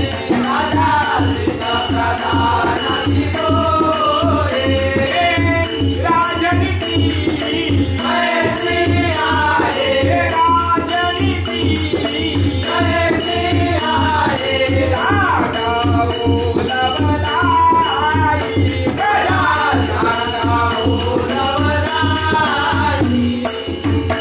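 Live folk music for a Chitrakathi puppet show: a singer chanting a melodic line, with tabla keeping a steady rhythm and a high jingling percussion beat over a held drone.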